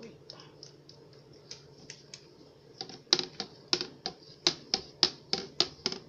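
A spoon stirring a drink in a pitcher, clacking against its sides: faint knocks at first, then from about three seconds in a quick run of sharp knocks, about three to four a second.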